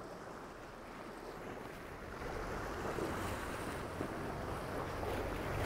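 Sea waves washing against a rocky shore, with wind rumbling on the microphone; the noise grows louder about two seconds in.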